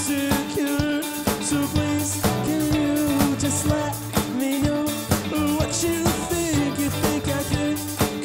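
Rock band playing live: electric guitars, electric bass and drum kit.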